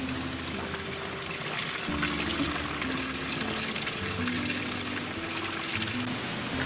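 Water running and splashing steadily, with soft background music of slow held notes.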